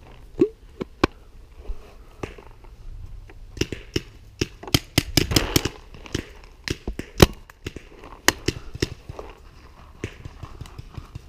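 Paintball markers firing in a game: an irregular run of sharp pops, some in quick pairs, most closely packed around the middle.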